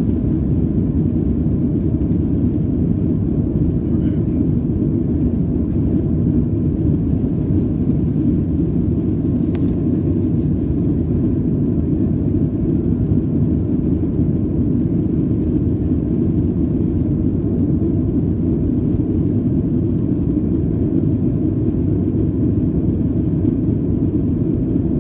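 Boeing 737-300 cabin noise at takeoff thrust during liftoff and initial climb: its CFM56-3 turbofan engines and the airflow make a steady low rumble, heard from inside the cabin.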